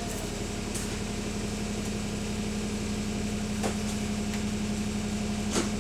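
Bus diesel engine idling with a rattle, heard from inside the bus: a steady hum with a fast even pulsing. Two sharp clicks sound, one about two-thirds in and a louder one near the end.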